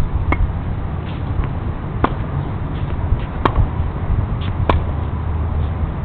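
Tennis rally: a tennis ball struck sharply by rackets, four clear hits about a second and a half apart, with fainter ball bounces between them, over a steady low rumble.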